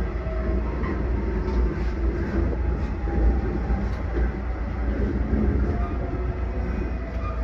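Steady running noise of a JR Central Limited Express Shinano train, a low rumble of wheels on rail with faint steady tones above it.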